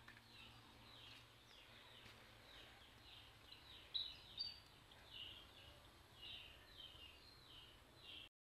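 Faint birds chirping: many quick, downward-sliding chirps repeating throughout, loudest about four seconds in, over a faint steady low hum.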